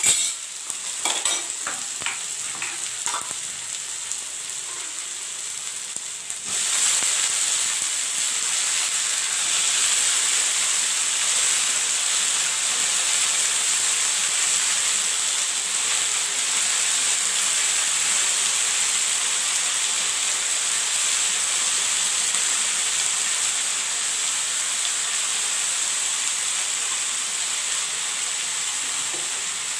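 Potatoes frying with onion-tomato masala in hot oil in a pan. A few knocks from stirring come in the first three seconds, then a steady sizzle that gets louder about six seconds in and holds.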